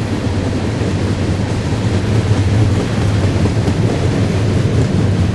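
Freight train cars rolling past on the rails: a steady, loud, low rumble of steel wheels on track.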